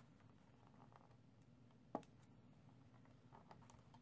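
Near silence with faint handling of a paper treat box and its cellophane wrapper, and one sharp click about two seconds in.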